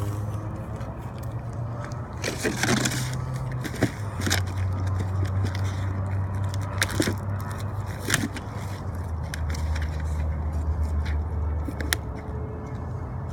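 Plastic packaging crinkling and rustling in short, sharp crackles as a bundle of shrink-wrapped books is handled, most busily about two to three seconds in. Under it runs a steady low hum of vehicle engines.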